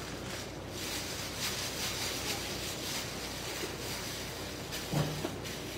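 Plastic bag and food wrapper crinkling as they are handled, over a steady background hiss, with a short low hum near the end.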